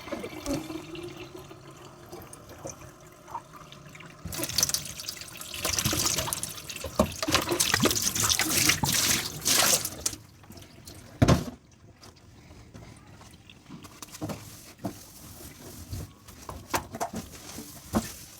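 Kitchen tap water running into a sink as dishes are washed, heaviest for about six seconds a few seconds in, then a single sharp knock of a dish about eleven seconds in, followed by small scattered clinks and drips.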